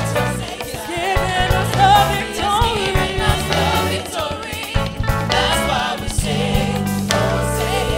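Live gospel music: several voices singing together over a band with electric guitars and drums.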